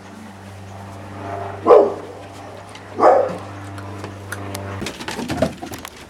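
A dog barks twice, short sharp barks about a second and a half apart, over a steady low hum that cuts off near the end.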